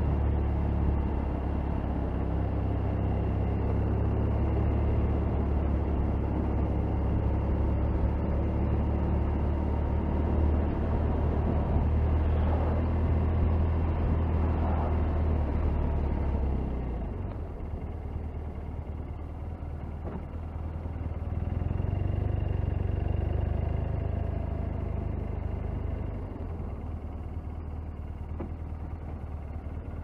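Motorcycle riding on town roads: a steady low rumble of engine and wind on the microphone. It drops about halfway through as the bike slows, swells again briefly, then eases off near the end as it slows.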